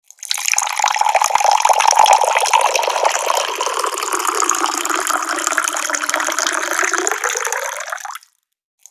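Tap water pouring in a steady, splashing stream. It starts abruptly just after the beginning and cuts off suddenly near the end into dead silence, like a loop being spliced.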